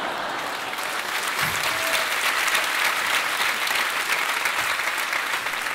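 Theatre audience applauding a joke: dense, steady clapping from a large crowd.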